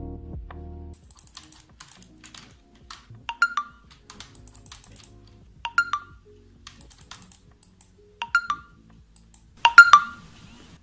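Smartphone message notification chime, a short two-note tone, sounding about every two and a half seconds and twice in quick succession near the end, as messages keep arriving. Under it, faint clicking of computer-keyboard typing.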